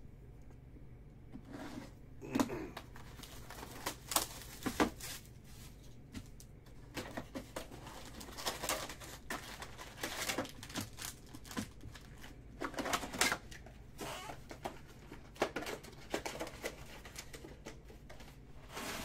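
2019 Topps Tribute baseball hobby box being opened and its foil-wrapped card packs pulled out and stacked: irregular crinkling, rustling and light taps of cardboard and foil wrappers.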